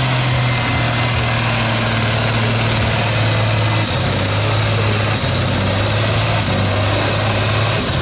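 Ford Super Six tractor's six-cylinder TW-10 diesel engine running hard under load while pulling a sled. Its pitch steps down a few times in the second half as the engine lugs.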